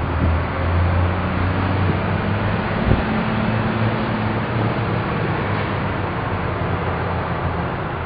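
Steady outdoor traffic and engine rumble with a low hum under a constant hiss, and one sharp knock about three seconds in.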